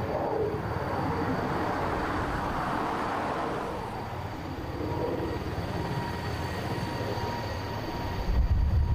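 Mil Mi-26T2V heavy-lift helicopter's twin turboshaft engines and eight-blade rotor running: a steady rumble with a faint, even turbine whine above it. The low rumble swells louder near the end.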